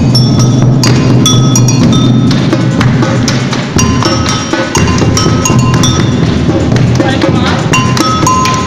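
Street percussion group playing a fast, driving rhythm: large drums struck with mallets and sticks, with an agogô bell ringing out its two clear metallic tones over the beat.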